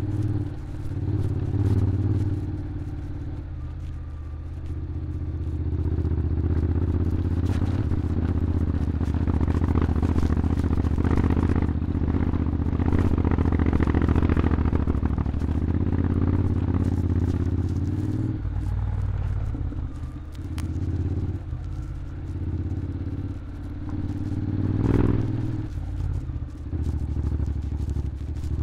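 Honda X-ADV 750's parallel-twin engine running while ridden, louder and higher through the middle stretch, then easing off.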